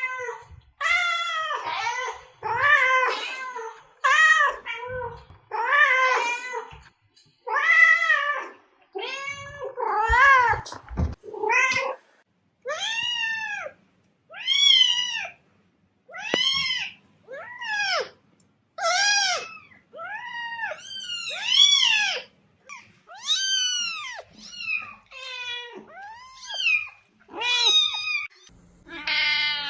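Domestic cat meowing over and over, roughly once a second. After about twelve seconds the meows turn higher-pitched, each one rising and falling in a clear arch.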